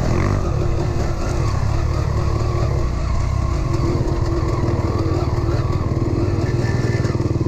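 Dirt bike engine running under throttle on a trail ride, heard on board from the rider's camera, a steady engine sound with no clear rev peaks.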